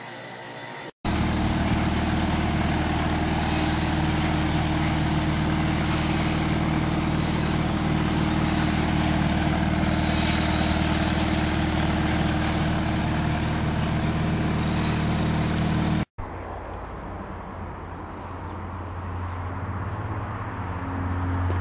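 A motor vehicle's engine running steadily with a constant low drone and hiss. It cuts off abruptly, and a quieter, lower hum takes over and grows louder near the end.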